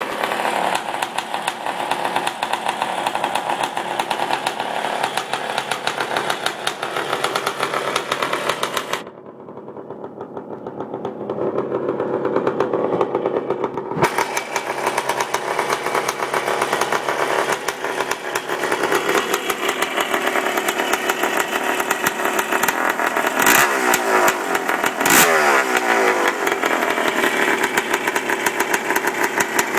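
A Kawasaki KX250 two-stroke single-cylinder motocross engine, just rebuilt, running on a borrowed four-stroke 250F exhaust instead of its own expansion chamber. It runs throughout, goes quieter and duller for a few seconds about a third of the way in, and is given two quick throttle blips about two-thirds of the way in.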